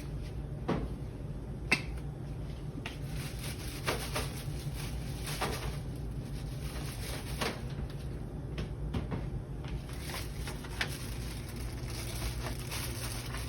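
Scattered light clicks and rustles of hands handling a plastic cooking bag and seasoning over lobster tails, over a steady low hum.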